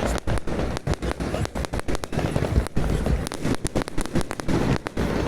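Fireworks going off, many sharp cracks and bangs in quick, irregular succession over a low rumble.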